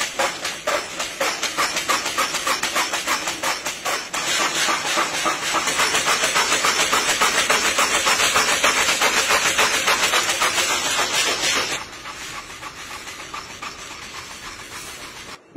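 A small grain-processing machine running with a fast, even rattle as grain and husks pour out of it. About twelve seconds in the sound drops abruptly to a quieter, even noise.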